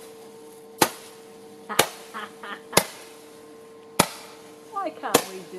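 Handheld roman candle firing: five sharp pops about a second apart, each one launching a burning star into the sky.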